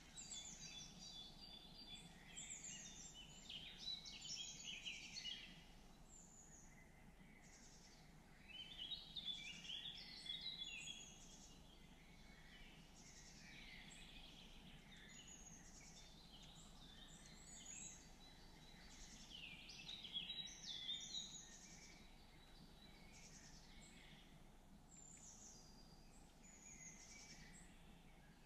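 Several songbirds singing, their high chirping phrases coming in spells every few seconds, over a faint steady background noise.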